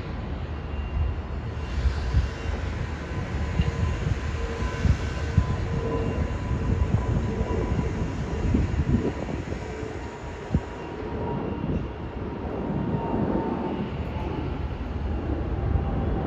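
Jet airliner flying over: a steady low rumble with a faint engine whine whose pitch drops slightly near the end.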